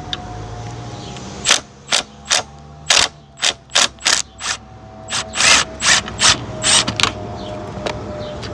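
Ratchet with a T50 Torx bit clicking in about fifteen short back-swing strokes over five seconds, starting about a second and a half in, as the seat belt buckle's mounting bolt is backed out.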